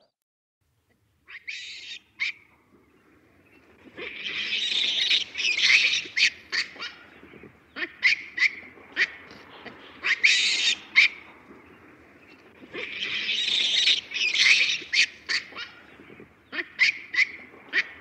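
Hamadryas baboons screeching: harsh, high-pitched calls in two long bouts, broken by short sharp yelps, after a couple of brief calls near the start.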